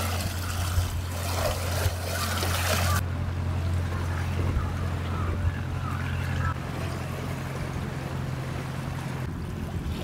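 Seawater surging and splashing among coastal rocks for about the first three seconds, then cutting off abruptly, over a steady low hum that fades out in steps near the end.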